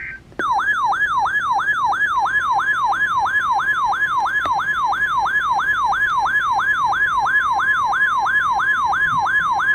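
Emergency alert attention signal between weather radio alerts: a steady tone with a loud electronic siren-like sweep over it, falling in pitch and repeating about three times a second. It follows right on the tail of a short two-pitch data burst.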